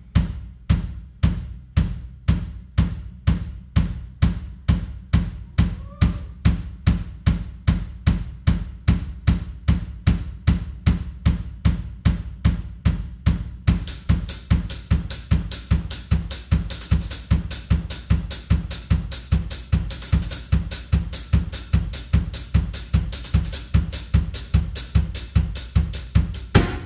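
Drum kit playing a steady dance groove of about two heavy kick-and-snare strokes a second. About halfway through, cymbals and hi-hat come in and fill the top end.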